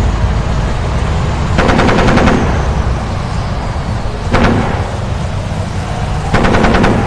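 Three bursts of rapid machine-gun fire, one about a second and a half in, a short one past the middle and one near the end, over a continuous low battlefield rumble. A faint falling whistle runs after the first burst.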